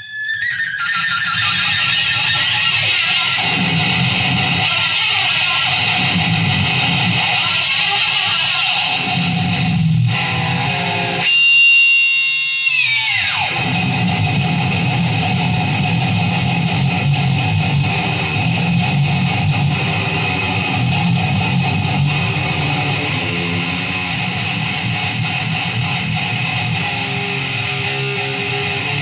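Electric guitar being played, with ringing strummed notes and chords. About twelve seconds in, a held high note dives steeply down in pitch.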